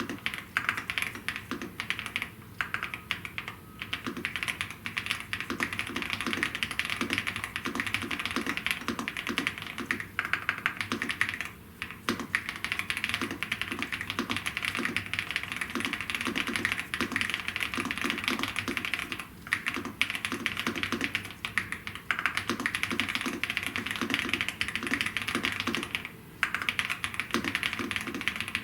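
Gravastar K1 Pro mechanical keyboard being typed on fast and continuously: a dense run of keystroke clicks, broken by a few short pauses.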